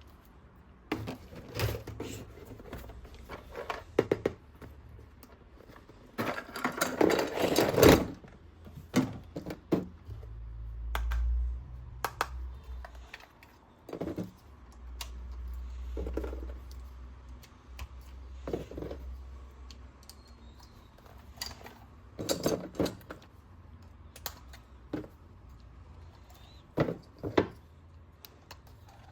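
Toy packaging being handled and opened: scattered clicks and taps of plastic, a louder stretch of crinkling about six to eight seconds in, and a couple of low bumps.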